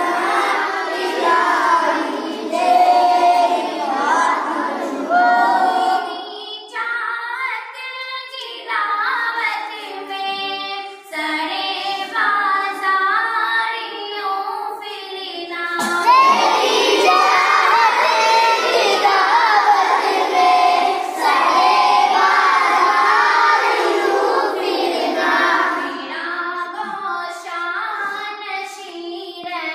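A group of boys singing a hamad, an Urdu devotional hymn, together. The sound thins to fewer, clearer voices for a stretch after the first few seconds, then swells full and loud again around the middle.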